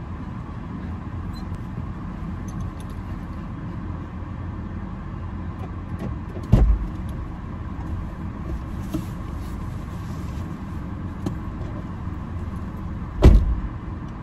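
Steady low rumble of a parked car heard inside its cabin, broken twice by a dull thump, about six and a half seconds in and again near the end.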